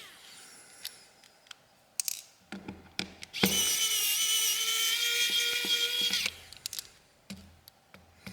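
Electric precision screwdriver running with a steady whine for about three seconds, backing a screw out of a phone's midframe, then stopping abruptly. Before it, a few light clicks of the bit and small screws.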